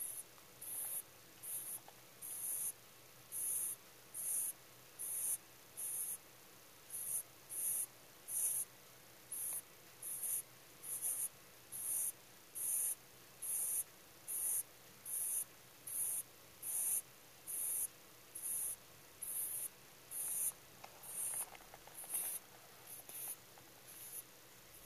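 A rabbit snoring in deep sleep: short, high, hissy 'soo-pee' breaths repeating about once a second.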